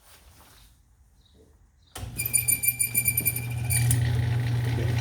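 A small lathe's motor is switched on about two seconds in and runs steadily with a low hum and a high whine; the whine drops out after about a second and a half, leaving the hum with a rougher hiss.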